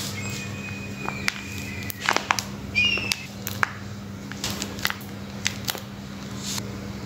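A small folded paper box handled in the fingers: light clicks, taps and rustles of paper and card, over a steady low hum. A thin high tone sounds for about two seconds near the start, and a short squeak about three seconds in.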